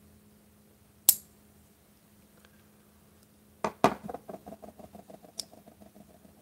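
Folding pocket knives being worked by hand: a sharp metallic click as a blade snaps open or shut about a second in, then a clatter and a fast, fading metallic rattle, and another sharp click near the end.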